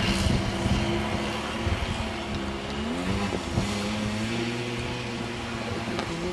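Small snowmobile engines running, with the engine pitch rising and then dipping about three seconds in as the throttle is worked.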